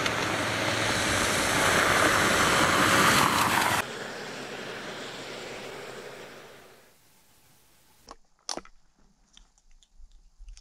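Car driving on a dirt road, its road noise rising as it comes close for the first few seconds and then breaking off; a fainter run of road noise follows and fades away. Near the end, two sharp clicks and light rustling.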